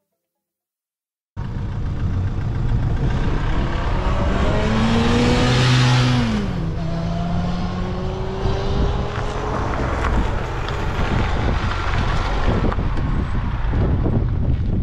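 Ducati Streetfighter V4's V4 engine accelerating hard, with wind rush on the microphone. It cuts in suddenly about a second and a half in, climbs in pitch for several seconds, drops at a gear change about six seconds in, then pulls on.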